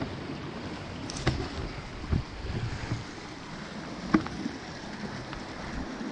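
Sea washing against a rocky shore, with wind on the microphone. A couple of short sharp knocks stand out, about a second in and about four seconds in.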